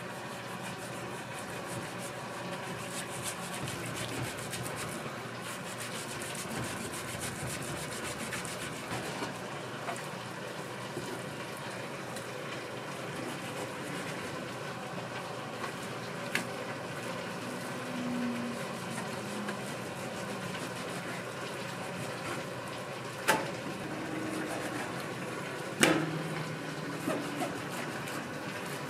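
Steady commercial-kitchen background noise, broken by a few sharp knocks, the loudest near the end.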